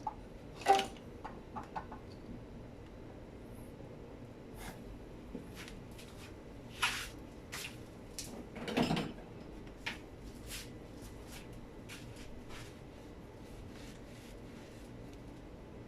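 Scattered clicks and light knocks of metal engine parts and tools being handled during engine reassembly, with a sharp knock about a second in and a longer, deeper clunk around nine seconds in.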